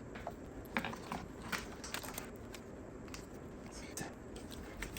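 Scattered small clicks and rustles of a plastic wiring harness and its clips being handled and pressed into place around an engine's fuel rail.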